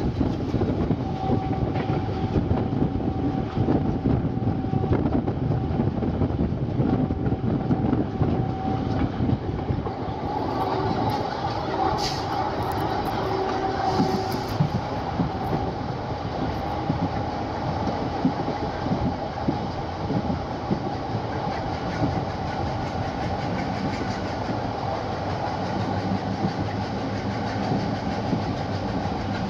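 Passenger train running along the line, a steady rumble of wheels on rails with some clickety-clack. A few sharp high squeaks or clicks come a little before the middle.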